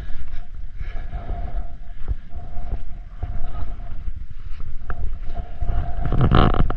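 Wind buffeting the microphone: a steady low rumble with scattered small clicks, swelling louder near the end.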